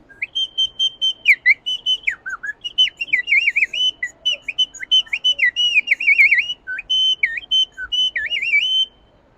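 A small Amazonian bird-imitating whistle, the collo, blown in a birdlike call. It gives a high held note that keeps breaking into rapid warbling trills and quick downward dips, then stops shortly before the end.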